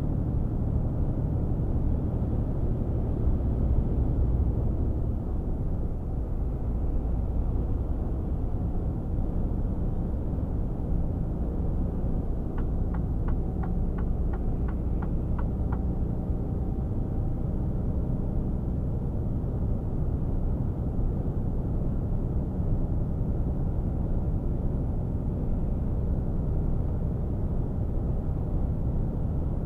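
Inside the cab of a Mercedes Actros 1848 truck at motorway cruise: its straight-six diesel drones steadily under tyre and road noise. A run of light ticks, about three a second, sounds for a few seconds in the middle.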